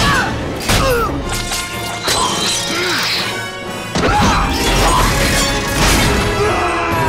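Orchestral action score played over several crashing impacts of smashing stone and falling masonry debris, the heaviest crash about four seconds in, followed by a low rumble.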